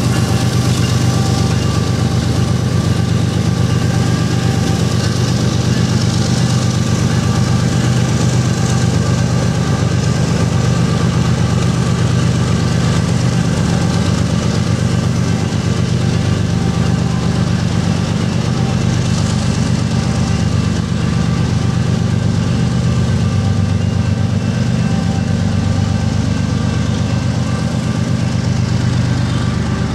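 GE diesel freight locomotive running steadily at low throttle as it creeps closer: a deep, even engine drone with faint steady whines above it.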